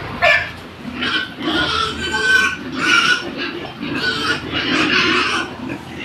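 A pen of pigs squealing and grunting as they crowd and jostle at the trough at feeding time, with a rapid run of short, high squeals over continuous low grunts.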